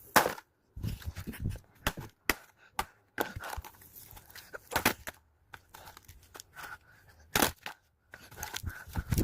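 Irregular clicks, knocks and rustles of objects being handled, with a few louder sharp knocks, the loudest about 7 seconds in.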